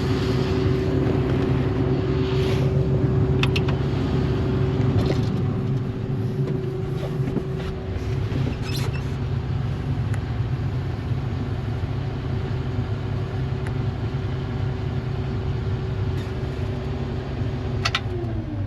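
John Deere combine harvester running steadily, a deep engine drone with a steady whine from its machinery. Near the end the whine falls in pitch as the machine winds down.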